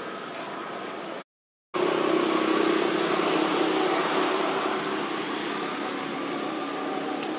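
A steady mechanical hum over a haze of outdoor background noise. The sound cuts out completely for about half a second just over a second in, then comes back louder.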